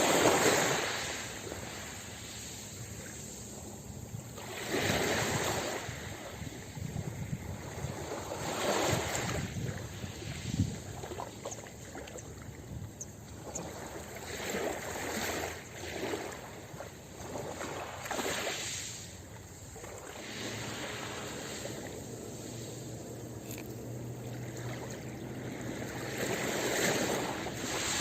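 Ocean waves breaking and washing on a beach, swelling and falling every few seconds.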